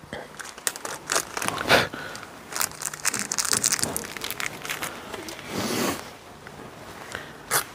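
Kitchen handling noises: irregular crinkling, rustling and light clicks from food and utensils being handled, with a longer rustle past the middle. At the very end a quick run of regular ratcheting clicks begins.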